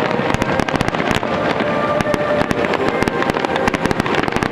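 Fireworks display going off in rapid succession: a dense run of crackling and popping shells throughout.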